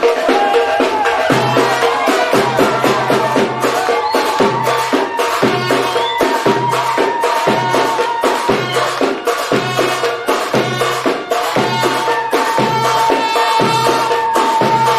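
Egyptian folk band music with a steady beat of hand percussion and a sustained melody line over it.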